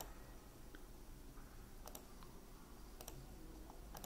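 A few faint computer mouse clicks, spaced roughly a second apart, over a low steady hum.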